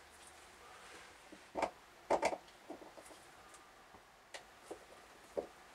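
A few light knocks and clicks of hand tools and plastic parts being handled while working on a Vacuflush toilet's spring cartridge, the loudest a quick cluster of two or three knocks about two seconds in.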